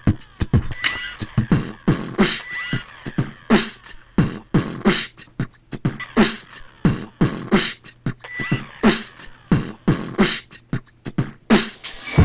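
Beatboxing: a fast rhythmic beat of mouth-made kick, snare and click sounds, with no instruments.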